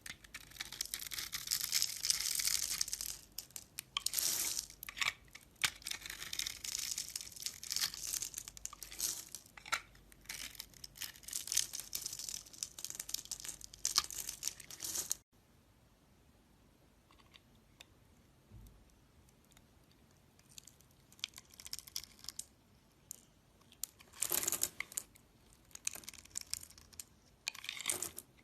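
Knife carving a bar of soap: dense, crisp scraping and crackling as shavings are cut. The sound stops abruptly about halfway through, then comes back as sparser, quieter cuts, with a louder flurry near the end.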